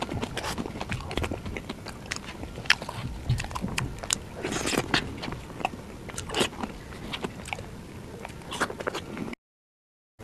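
Close-miked mouth sounds of eating soft mousse cake: wet smacking and chewing clicks, with the spoon now and then scraping the plate. The sound cuts out abruptly for about the last second.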